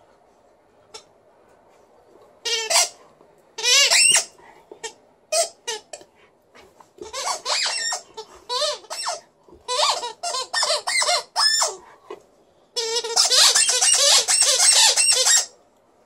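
Alaskan Malamute playing with a green squeaky rubber ball: a series of high, wavering squeaks in short bursts, with a longer run near the end.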